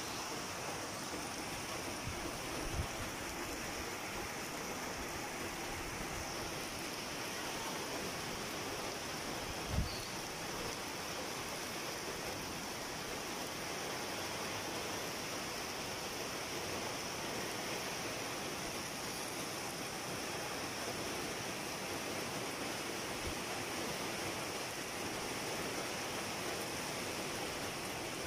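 Typhoon rain and wind: a steady rush of heavy rain with no letup. There are two brief low thumps, about 3 seconds and 10 seconds in.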